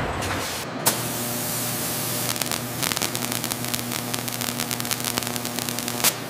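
A metal cutting head throwing sparks across a metal drum lid: a steady electrical hum with rapid spark crackle. The hum starts with a sharp click about a second in, and the crackle thickens from about two seconds on.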